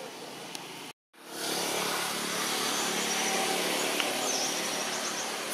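The sound cuts out briefly about a second in, then a steady, even outdoor noise fades in and holds, with no clear rhythm or tone.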